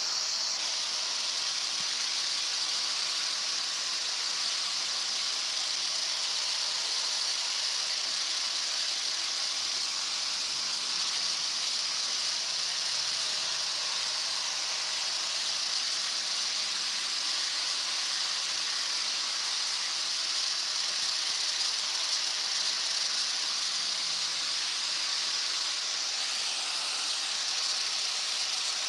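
Hair dryer fitted with a diffuser, blowing a steady hiss of air while drying hair.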